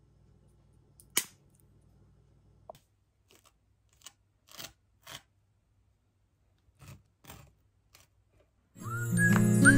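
A knife spreading butter across crisp toast: several short scraping strokes, after a sharp click about a second in. Light tinkling music starts near the end.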